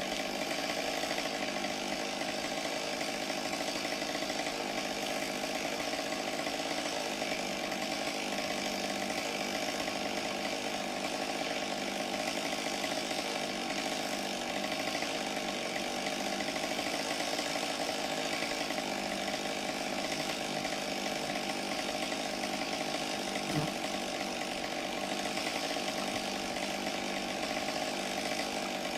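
Chainsaw running steadily as it cuts through tree wood, with one brief knock about three-quarters of the way through.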